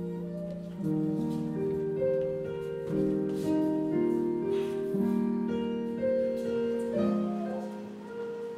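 Slow instrumental piano music: sustained chords, a new one about every second, dying away near the end.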